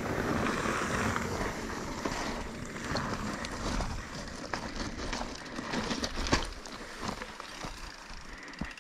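Mountain bike descending a loose gravel trail through steep berms: rough tyre noise on gravel with scattered clicks and rattles from the bike, and wind rumbling on the microphone. It eases off over the last couple of seconds.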